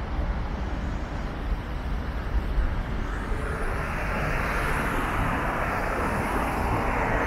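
Road traffic: a steady low rumble, then a small car passing close by, its tyre hiss swelling over the last few seconds.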